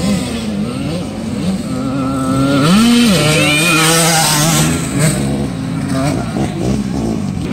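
Motocross dirt bike engines revving up and down as riders circle the track. One bike passes close about three seconds in, its engine loudest then.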